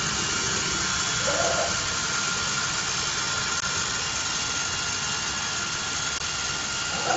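ATC CNC router running: the spindle's steady high whine over a constant rushing noise as the head moves across the board.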